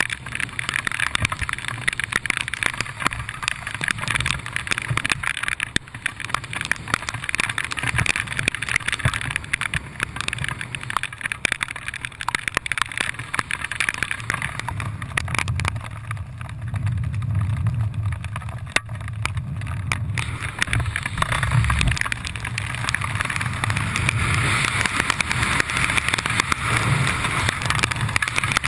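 Rushing wind buffeting a GoPro action camera's microphone in the airflow of a skydive, a steady noisy rush full of small crackles. From about the middle the hiss drops and a low rumble grows stronger.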